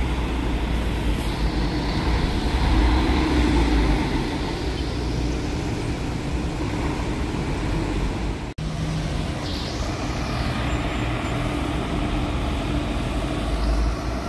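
Diesel intercity coach engines running as one coach pulls away and, after a brief dropout partway through, another rolls closer, with tyre hiss on wet asphalt.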